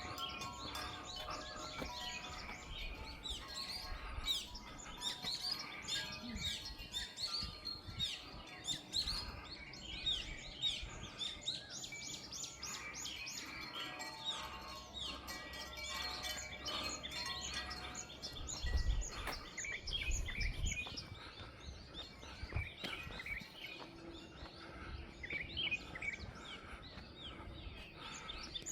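Many small birds chirping and calling without a break, a dense chorus of short twittering notes. The ringing tones of a bell fade out over the first few seconds, with a few faint ringing tones again near the middle and a brief low rumble about two-thirds of the way in.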